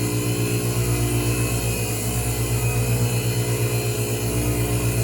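Van Norman FG1000 flywheel grinder running steadily, its stone grinding the clutch disc face of a cast iron step flywheel to clean it up. A constant machine hum with a low swell that rises and falls every couple of seconds.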